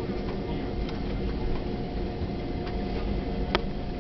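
Airbus A320 cabin noise while the airliner rolls along the ground: a steady low rumble with a constant engine hum of two steady tones. A sharp click near the end.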